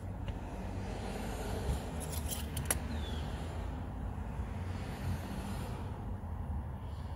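Light handling sounds of a metal engine-oil dipstick being wiped in a cloth rag, with a few sharp clicks about two and a half seconds in, over a steady low wind rumble on the microphone. A short falling bird chirp comes about three seconds in.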